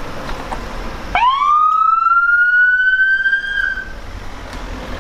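Siren on a Ford Crown Victoria police car, sounded once about a second in: a wail that sweeps quickly up, keeps rising slowly for about two and a half seconds, then cuts off. Car engine and road noise run underneath.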